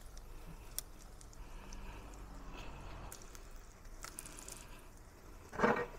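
Beaten egg with scallions frying in oil in a nonstick wok, a faint steady sizzle with a few light taps of a silicone spatula against the pan. A louder brief sound comes near the end.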